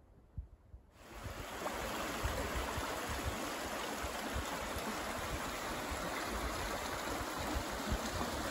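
Shallow mountain rivulet running over gravel and stones, a steady rushing babble that starts suddenly about a second in, after a faint quiet start.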